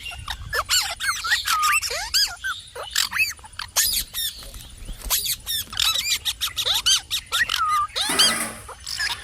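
Indian ringneck parakeet chirping and chattering rapidly, many short pitched calls a second that bend up and down, with a harsher screech near the end.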